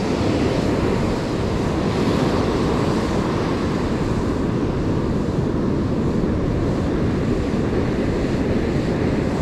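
Steady wash of ocean surf with wind buffeting the microphone, an even noise that holds level throughout.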